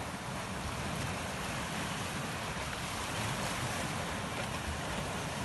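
Sea surf washing steadily over a rocky shoreline, with wind rumbling on the microphone.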